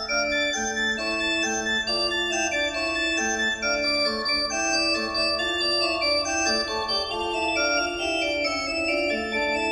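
Background music: an electronic organ plays a melody of held notes that step from one to the next at a steady volume.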